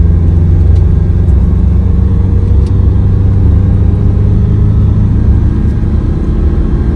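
Mitsubishi L200 pickup's turbocharged engine pulling at full throttle under load, heard from inside the cab as a loud, steady drone.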